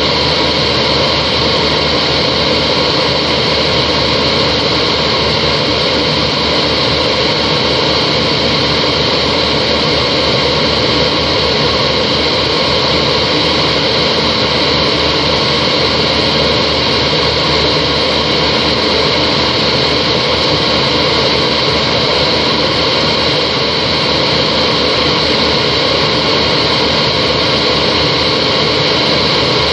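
Steady cabin noise of a Yak-42 airliner in flight, heard from inside the cabin: the whistle of its three rear-mounted Lotarev D-36 turbofans over a constant rush of air, unchanging throughout.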